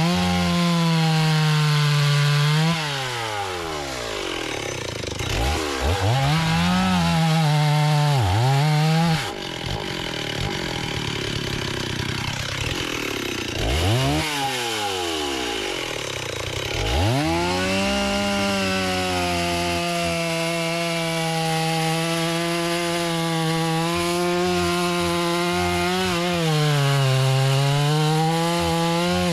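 Two-stroke chainsaw running at high revs and cutting wood. The throttle is let off and opened again several times, so the pitch drops and climbs back each time. From a little past halfway it holds a long, mostly steady cut, with one more dip near the end.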